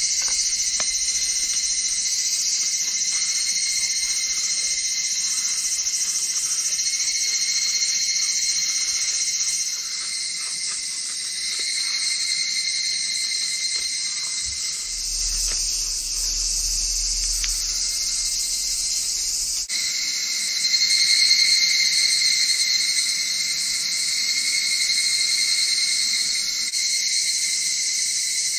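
Chorus of higurashi (evening cicadas) singing steadily in overlapping phrases that swell and fade, loudest about two-thirds of the way through. In the first half there are faint short scrapes of a knife shaving a wooden stick into feather curls.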